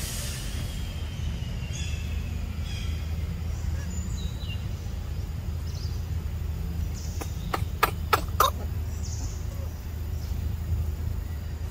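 Outdoor ambience with a steady low rumble and faint high chirps. A quick run of four or five sharp clicks comes a little past the middle.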